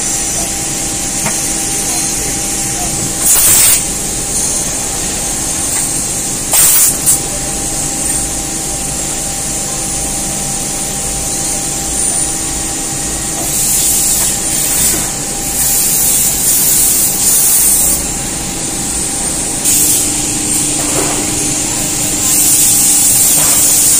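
CNC vertical machining centre milling a small metal part with an end mill: the spindle runs with a steady whine while the cutter works. Repeated bursts of hissing spray come and go, several of them in the second half.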